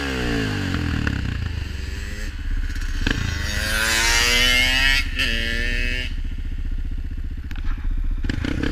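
A quad's engine running steadily on pavement while a two-stroke dirt bike comes alongside and accelerates past, its engine note rising in pitch through a couple of gear changes in the middle. An engine note falls away right at the start.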